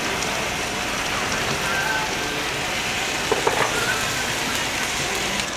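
Steak, corn and onions sizzling steadily on a hot iron serving plate.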